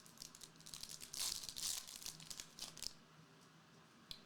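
Trading cards and their pack wrapper being handled, crinkling and rustling in short bursts that die down about three seconds in, with a single small click near the end.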